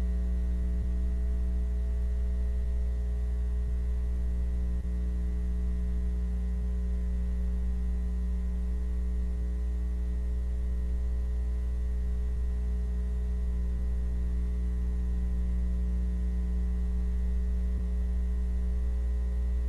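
Steady electrical mains hum with a ladder of evenly spaced overtones, unchanging throughout, and no other sound: a blank stretch of soundtrack where the music is missing.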